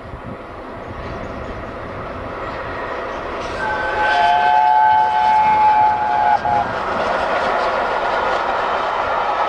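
Steam locomotive 60163 Tornado approaching at speed, its whistle sounding several notes together for about three seconds, the last note dropping slightly as it cuts off. After the whistle the rush of the passing train grows into a steady loud rumble.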